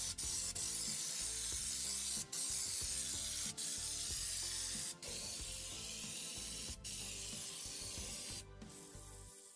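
Pneumatic underbody-coating (schutz) gun spraying anticorrosion mastic from a screw-on can: a steady hiss of air and atomised coating, broken by several short gaps as the trigger is released. It grows quieter in the second half.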